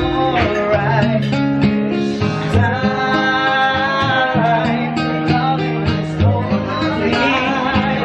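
Male voices singing live to an acoustic guitar accompaniment, with one long held note about two and a half seconds in.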